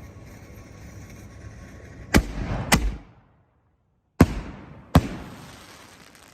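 Two Air Raid aerial firework shells going off: four sharp, loud bangs in two pairs about half a second apart, each fading away after it.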